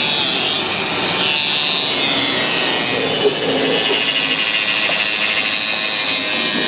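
Electric rotary car polisher running with a steady high whine, its buffing pad spinning against the painted bonnet.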